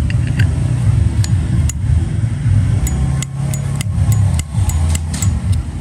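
Metallic clicks and clinks of a Zippo Slim lighter being handled, its hinged lid snapped open and shut several times at irregular intervals, some clicks with a bright ring. Under them runs a steady low rumble.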